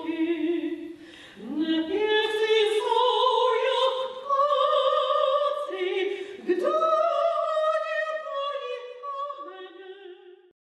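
A woman singing opera in a full, wavering voice. She twice slides up into long held notes, and the singing fades out near the end.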